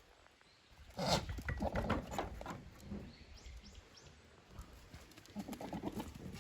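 Goats jostling at a fence: a quick run of knocks and clattering hooves about a second in, then softer scraping and shuffling near the end.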